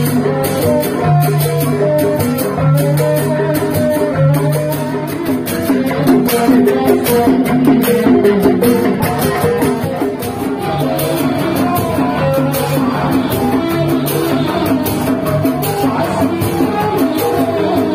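Sundanese reak procession band playing: drums and cymbals beat densely under a pitched melody.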